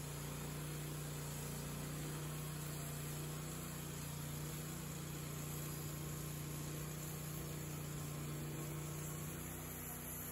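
Wood-Mizer LT30 Hydraulic band sawmill running steadily as its blade cuts through a black cherry log, a constant low engine hum with a hiss of cutting above it. The hum eases off near the end.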